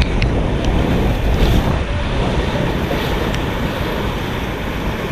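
White-water river rapids rushing as a loud, steady noise, with wind rumbling on the microphone.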